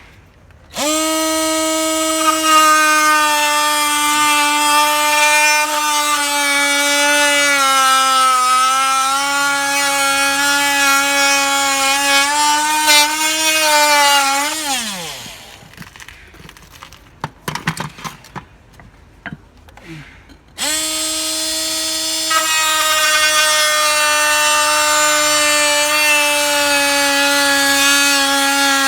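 Ryobi 18V cordless oscillating multi-tool running with a steady high buzz, its pitch sagging a little about midway as if under load, then winding down with a falling pitch. After several seconds of scattered clicks and knocks it starts again and runs steadily.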